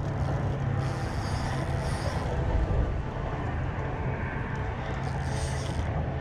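A steady low engine drone, with two short higher hissing spells over it, about a second in and again about five seconds in.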